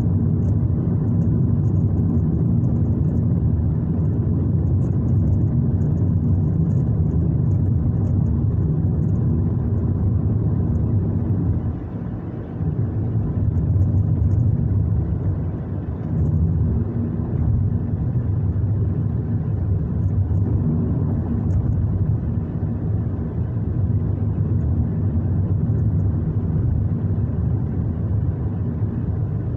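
Steady low rumble of a car, heard from inside, with a brief drop in level about twelve seconds in.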